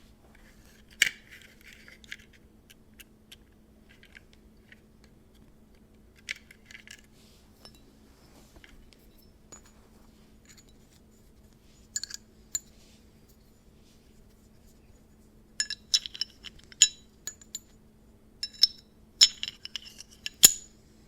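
Parts of a 3D-printed PLA plastic Glock 43x being handled and fitted together: scattered sharp plastic clicks and clacks with light scraping. They come singly and far apart at first, then in quick clusters over the last six seconds or so.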